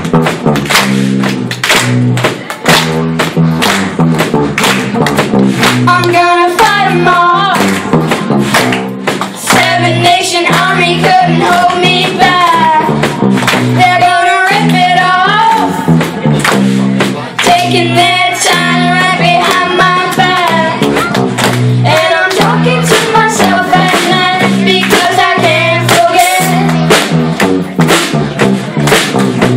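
A song with a steady drum beat and a bass line; a singing voice comes in about six seconds in and carries on.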